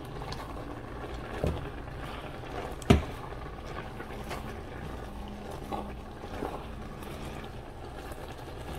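A plastic spatula stirring a pot of simmering eru greens, giving a few soft knocks against the pot, the sharpest about three seconds in, over a steady low background noise.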